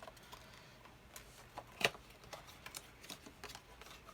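Light clicks and taps of a boxed skincare product's packaging being handled and opened, with one sharper click about two seconds in.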